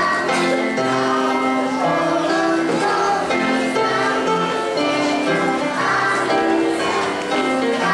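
A song with singing voices over a steady melody, played as music for dancing.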